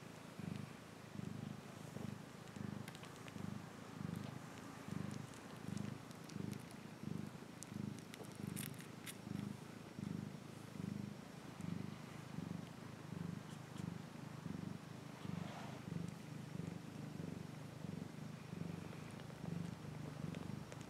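Maine Coon mother cat purring while nursing her kittens: a low, steady purr that swells and fades with each breath.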